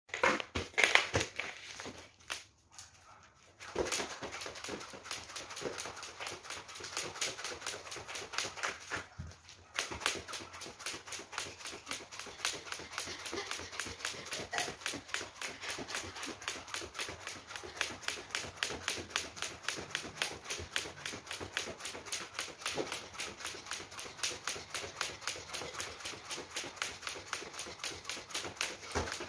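Jump rope slapping a wooden floor on each turn while the jumper's feet land, in a fast, steady rhythm. The rhythm breaks off briefly twice, once a few seconds in and once about a third of the way through.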